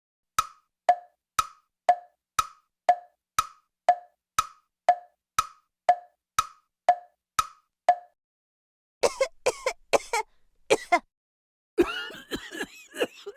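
Clock ticking sound effect, a steady tick-tock of sharp ticks twice a second for about eight seconds. It is followed by short cartoon cough sound effects, in bursts from about nine seconds in.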